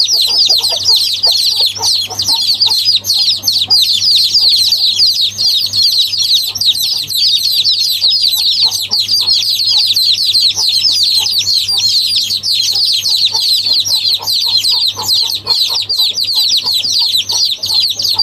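Many small birds chirping at once in a dense, continuous chorus of rapid high chirps, over a steady low hum.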